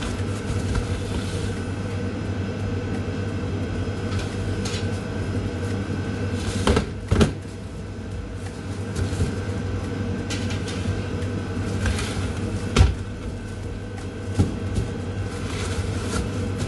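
Steady hum of commercial kitchen equipment, with a few knocks and clatters as baked loaves are handled and taken off baking trays. The sharpest knocks come about seven and about thirteen seconds in.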